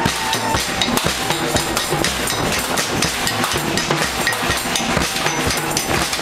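A crowd of demonstrators banging noisemakers and drums: a dense, unbroken clatter of knocks and bangs with no even beat.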